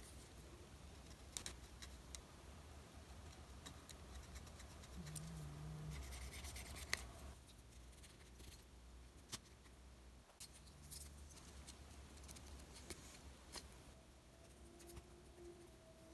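Faint metal clicks and scraping as a small Leatherman Squirt PS4 multi-tool is handled and worked, with a rubbing, scrubbing stretch about five seconds in.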